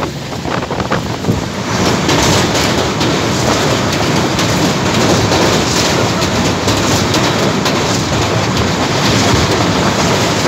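Passenger train running across a river bridge, heard from an open door: a loud, steady rumble and clatter of the wheels on the bridge, with wind buffeting the microphone.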